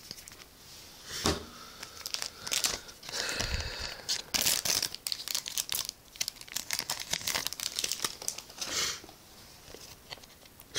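Foil trading-card booster pack wrapper being torn open and crinkled, a run of irregular crackly rustles and tears, with cards rustling against it.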